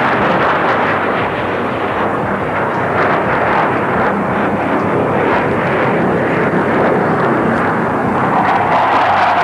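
Military jet aircraft in flight, its engine noise loud and steady, growing a little brighter near the end.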